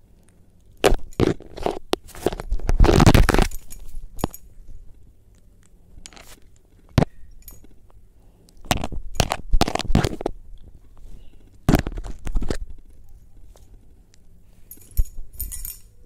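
A pet conure's beak biting and crunching right at the microphone: irregular clusters of sharp cracks and crackles with quiet gaps between, loudest about three seconds in.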